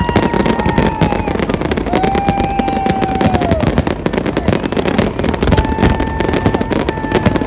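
Fireworks display: dense, continuous crackling and popping of bursting aerial shells and fountains, with a few long steady whistling tones held over it, each for a second or two.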